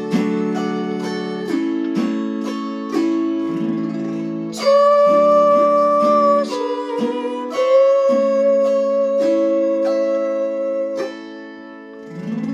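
Chromaharp (autoharp) playing a slow hymn: chords strummed across the strings with a melody line ringing above them. The playing dips near the end, then a fresh strum comes in.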